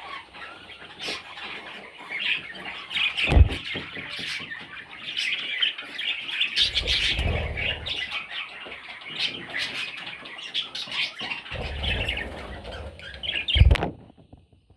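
Budgerigars, the baby budgies and their nest, keep up a continuous rush of chirping and chattering. Two sharp low thumps stand out, one a few seconds in and one near the end.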